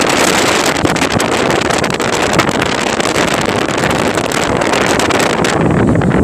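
Boat at sea in rough water: steady loud rushing of wind and water, with wind buffeting the microphone.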